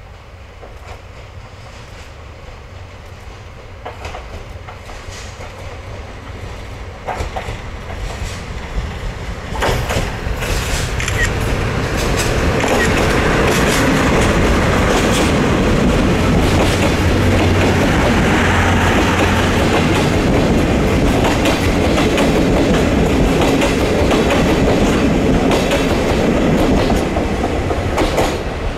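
DD51 twin-engine diesel-hydraulic locomotive approaching and passing close by with a train of passenger coaches. The engine sound grows steadily louder over the first dozen seconds, with a few sharp clicks. Then comes a loud, steady rolling noise and clickety-clack of the coach wheels over the rail joints as the train goes past, dropping off right at the end.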